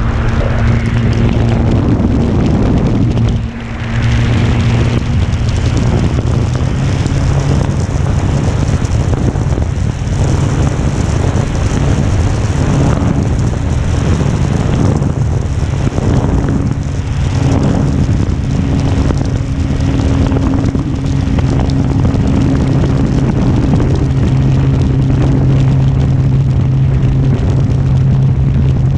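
Carbon-Z Cessna 150 electric RC model airplane in flight: the motor and propeller hold a steady drone, shifting slightly in pitch now and then, under heavy wind noise.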